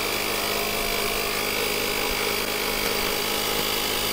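RoadTek digital portable air compressor running steadily at a constant pitch, pumping air into a car tyre toward its 36 PSI auto shut-off.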